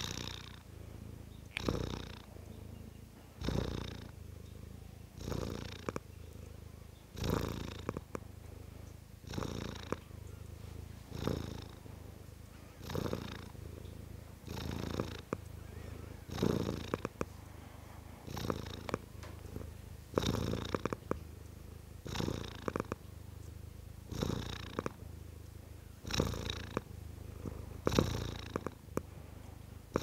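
Domestic cat purring steadily, the purr swelling in a regular rhythm with each breath, about once every two seconds.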